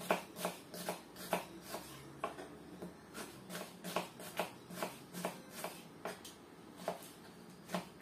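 Kitchen knife slicing onion into half-rings on a wooden cutting board: a run of irregular taps, about two a second, as the blade cuts through and strikes the board.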